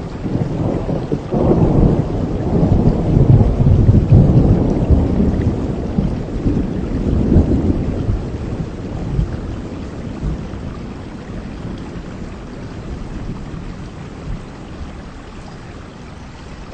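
Heavy rain with a long roll of thunder: a deep rumble swells about a second in, then fades away over the next several seconds, leaving the steady hiss of the rain.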